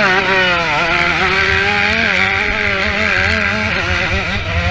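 Motocross bike engine revving up sharply at the start, then held at high revs with small rises and dips.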